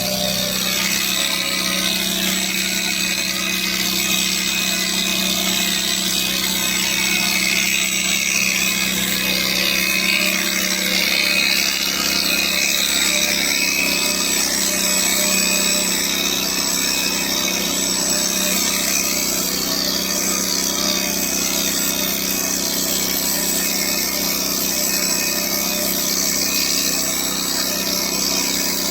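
A small electric motor running steadily with a constant buzz, unchanged throughout.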